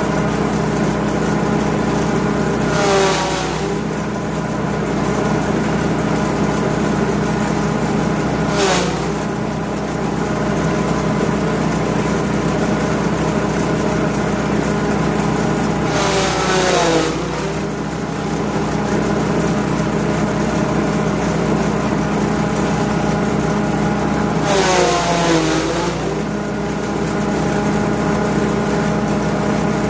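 Grass chopper machine driven by a 5.5 HP petrol engine, running steadily. Four times, roughly every seven seconds, a burst of rushing, shredding noise comes in while the engine's pitch dips and recovers, the sign of the engine taking load as material is fed in and chopped.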